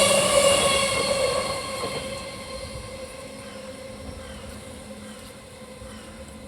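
Freight train passing at speed and moving away: its rail noise and a steady whine fade over the first two to three seconds, leaving a faint distant rumble.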